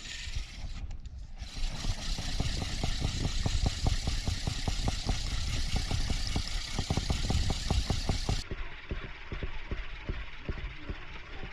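Fishing boat's engine running steadily with a rapid regular beat, under a steady hiss that falls away near the end.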